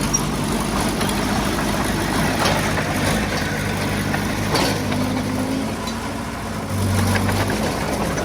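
Heavy-equipment diesel engine running steadily at low revs, with a few sharp knocks between about two and five seconds in.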